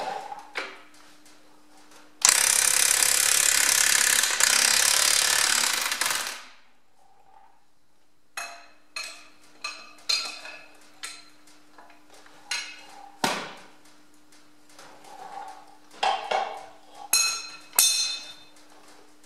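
Impact wrench hammering at a front axle housing bolt on a Ferguson FE35 tractor for about four seconds, undoing it. It is followed by a string of short, sharp metallic clinks and knocks.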